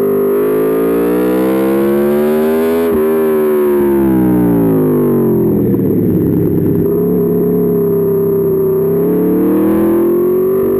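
Aprilia Tuono V4 motorcycle's V4 engine heard on board, revving up with a rising pitch for about three seconds, then falling in pitch as it slows. It runs rougher at lower revs for a few seconds, then climbs again near the end.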